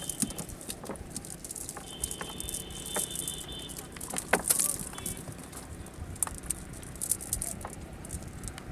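Fish being picked out of a cast net in a wooden boat: scattered taps, flaps and small splashes as fish land on the planks and in the bilge water, with the net rustling. The loudest burst of taps comes about halfway through.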